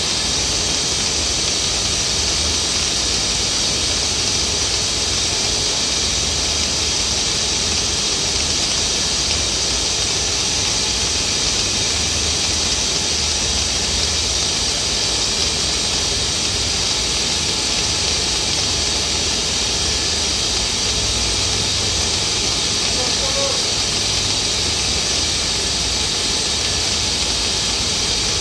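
Chemical cleaning solution jetting from a hose into a plastic drum of churning liquid as it circulates back from the air compressor's radiator: a steady hiss and splash, with a low rumble underneath.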